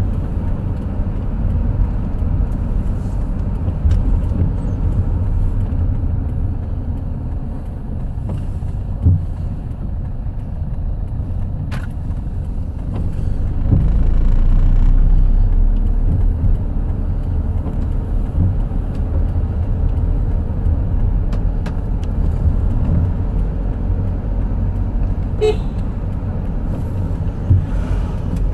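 Steady low rumble of a moving road vehicle, with a short horn toot about 25 seconds in and a few knocks along the way.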